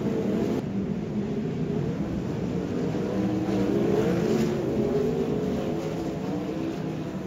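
Several sprint car engines racing on a dirt oval, their pitches rising and falling as the cars circle the track, loudest about four seconds in.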